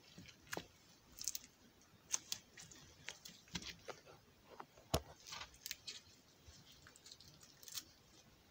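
Faint, irregular clicks, taps and rustles of hands handling small plastic slime containers and lids on a wooden floor, with a sharper tap about halfway through.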